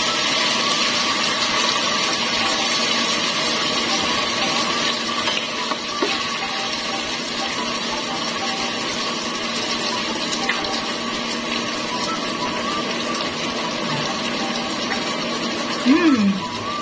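Sweet and sour sauce with vegetables simmering and sizzling in a frying pan, stirred with a spatula, a steady hiss with a faint steady hum beneath.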